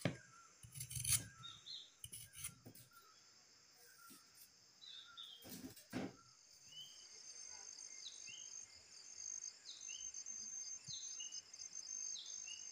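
Outdoor village ambience: small birds giving short, repeated downward chirps over a steady, high, pulsing insect buzz that sets in about halfway. In the first half come a few scraping strokes of a hand peeler on a potato.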